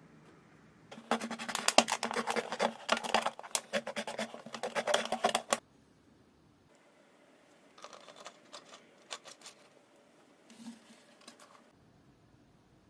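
Rapid, irregular clicking and rattling from the plastic parts of a disassembled electric thermopot: a loud spell of about four and a half seconds, then a quieter spell of scattered clicks.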